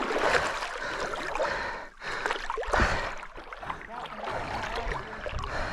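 Rushing, splashing river water close to the microphone.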